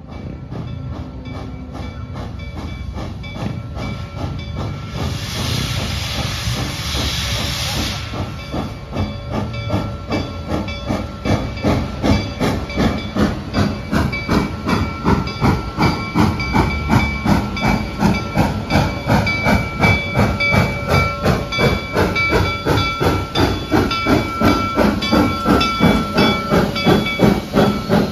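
Large steam locomotive drawing slowly closer under steam. About five seconds in comes a loud blast of steam hiss lasting some three seconds. After that, a rhythmic exhaust chuff, two or three beats a second over a steady hiss of steam, grows louder as the engine nears.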